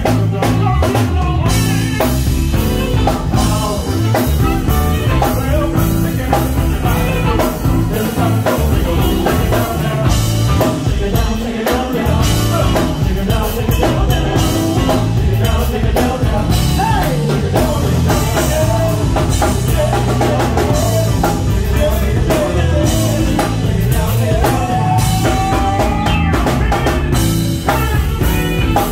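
Live band playing upbeat dance music, with a drum kit, electric guitars and bass and a woman singing. The playing continues steadily with no break.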